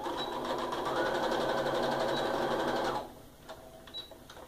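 Electric sewing machine stitching a seam at a fast, even stitch rate for about three seconds, then stopping abruptly. A few faint clicks follow.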